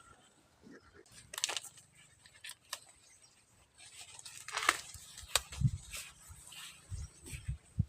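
Intermittent rustling, tearing and snapping of dry corn leaves and husks being handled, with a few dull thumps in the last three seconds.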